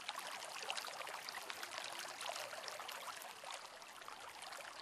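Steady trickling, splashing water, dense with small drop sounds, running as a background ambience track.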